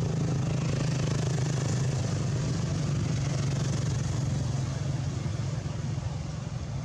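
An engine running steadily at idle, a continuous low hum with no change in pitch.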